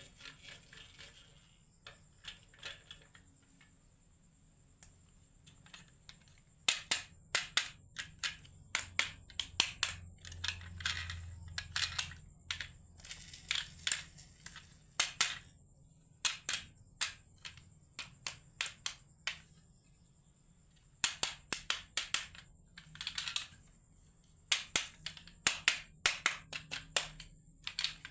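Marbles clacking down a wooden marble run: bursts of sharp clicks and rattles in quick clusters, with quiet gaps between runs.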